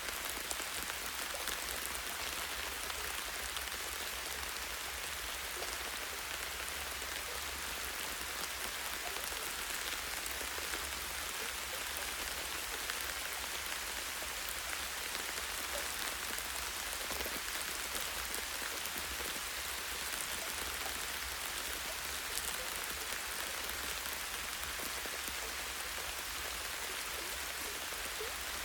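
Light rain falling steadily on tree branches and leaves: an even hiss dotted with many small drop ticks, over a steady low rumble.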